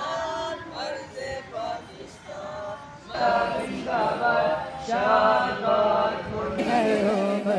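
A group of voices singing a chant-like song without instruments. It grows louder about three seconds in, and its tone changes abruptly near the end.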